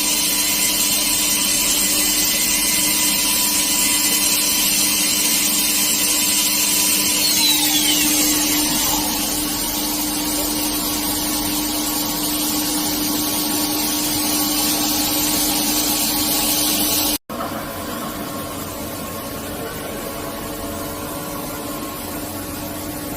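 SNK RB-200F CNC bridge mill's spindle running at speed during a spindle run test: a steady mechanical whine with hiss. About seven seconds in, a higher whine falls in pitch, and after a sudden cut the machine runs on a little quieter.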